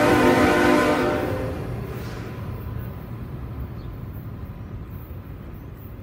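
Train's locomotive air horn sounding and trailing off in the first second and a half, then the low rumble of the train fading away as it recedes.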